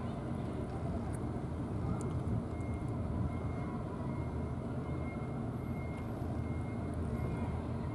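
Steady low outdoor background rumble, with a faint thin high tone coming and going.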